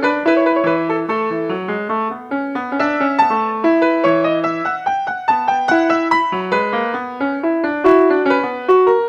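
Solo grand piano playing a piece in a steady stream of struck notes, melody over a moving accompaniment.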